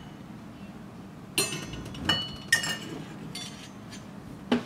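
Small stainless steel toy pots, lids and plates clinking together as they are handled: several separate clinks, the louder ones ringing briefly, starting about a second and a half in.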